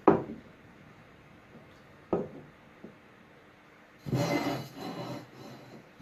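Hard workshop parts knocked down onto a tiled floor, a sharp knock at the start and another about two seconds in. Then, about four seconds in, a steel pipe rolls and scrapes across the floor for about a second and a half.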